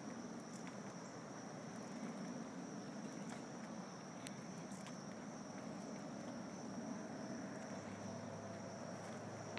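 Chorus of insects outdoors at dusk, one steady high-pitched note, over a low steady rumble.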